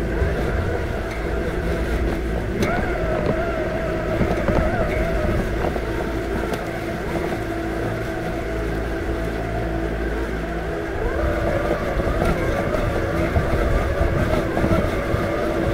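Robotic lawn mower running: a steady electric motor whine with a second, higher tone that wavers in pitch, over a low rumble.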